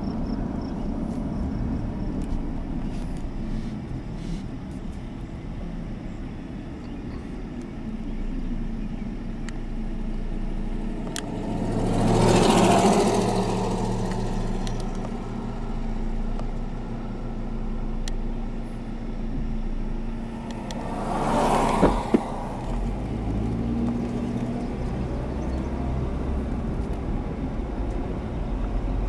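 Car driving slowly, heard from inside the cabin: a steady low engine and road rumble, with two louder rushes of noise about 12 and 21 seconds in, the first the loudest.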